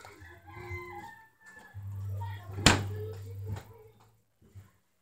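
A rooster crowing in the background, then a single sharp knock about two and a half seconds in.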